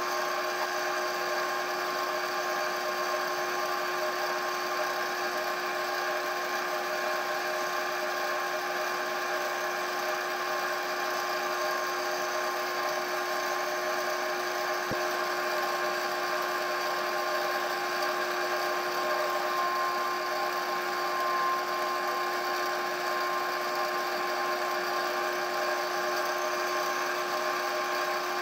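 Wood lathe running at a steady speed, its motor giving an even whine made of several steady tones. A single faint click midway.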